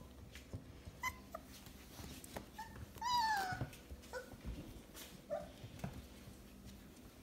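Four-week-old puppies whimpering: a few short whines and yips, with one longer, louder whine falling in pitch about three seconds in.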